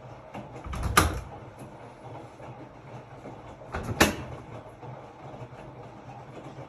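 Hotpoint-Ariston RSG 825 J washing machine running a cycle, with a steady low hum and two loud thuds about three seconds apart, each swelling briefly before it hits.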